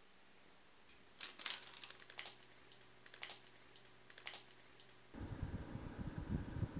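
A run of about ten irregular light clicks, then about five seconds in an oven grill starts abruptly with a low steady rumble and fine crackling as the banana halves cook.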